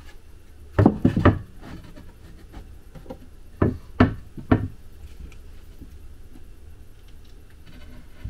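Wooden board knocking against timber framing as it is fitted into place: a quick run of knocks about a second in, then three more around four seconds in.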